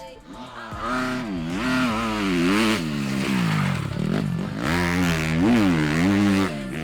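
Small dirt bike engine revving hard, its pitch climbing and dropping over and over as the rider works the throttle.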